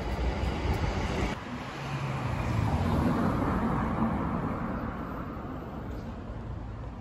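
Outdoor street noise with a vehicle passing: its sound swells about two to three seconds in and fades away after. The background rumble changes abruptly a little over a second in.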